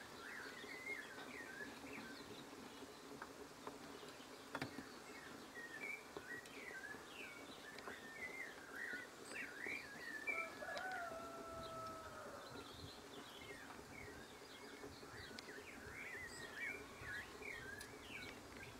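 Faint chirping of birds, many short quick calls with a couple of longer whistled notes about halfway through, and a single knock a few seconds in.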